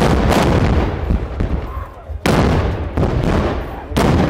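Black-powder muskets firing blank charges: loud shots about two seconds apart, each dying away slowly, over the noise of a crowd.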